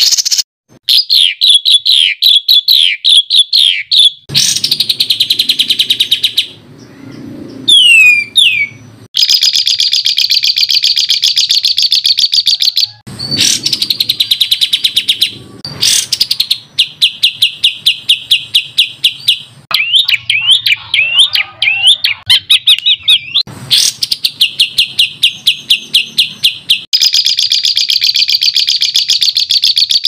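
Songbird song made of rapid-fire runs of high repeated chirps and fast trills. Several different phrases follow one another with abrupt switches, like spliced recordings of different birds.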